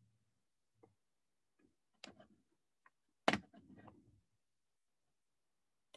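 A few scattered, quiet clicks and knocks from handling a computer mouse at a desk, the loudest about three seconds in, followed by a brief rustle.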